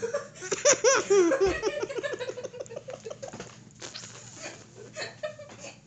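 A boy laughing hard: a loud run of quick ha-ha-ha pulses starting about half a second in, trailing off after a couple of seconds into quieter chuckles.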